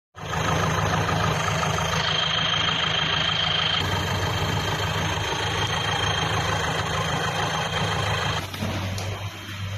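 An engine running steadily at idle, a constant low hum under a noisy wash.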